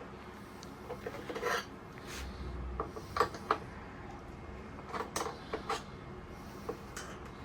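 Motorcycle indicator parts and their fittings being handled by hand: a scattered series of light clicks and taps, with a brief rustle about a second and a half in.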